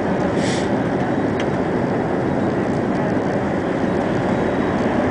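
Steady cabin noise of an Airbus A380 in flight: the even rush of engines and airflow heard inside the passenger cabin, fairly loud. A brief hiss about half a second in.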